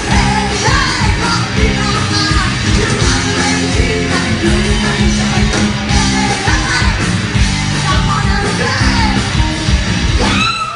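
Live rock band playing loud: electric guitars, bass guitar and a drum kit with a steady beat, and a singer's voice over the top.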